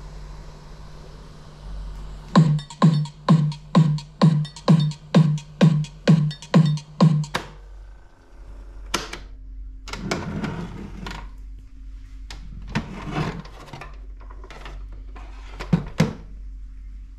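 Sanyo MW160L boombox's clock alarm going off: a low buzzing beep pulsing about twice a second for some five seconds, then stopping. Then a click, bumping and rattling as the set is handled, and two sharp knocks near the end.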